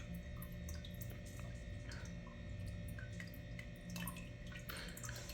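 Wireless automatic pet water fountain running: water trickling and dripping, with many small scattered drips over a faint steady hum.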